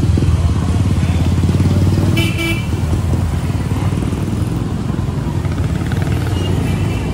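Motorcycle engine running close by in street traffic, loudest in the first two seconds, with a short horn toot about two seconds in and a fainter one near the end.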